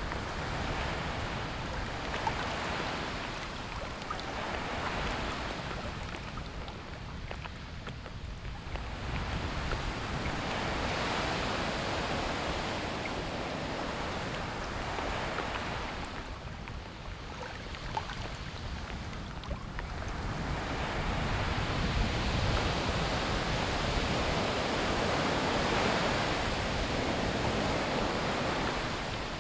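Ocean waves breaking and washing up a beach, the surf swelling and easing in slow surges every several seconds, with a steady low rumble underneath.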